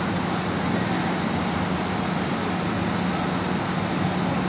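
Idling engines of the emergency vehicles, a fire engine and an ambulance, giving a steady drone with a constant low hum.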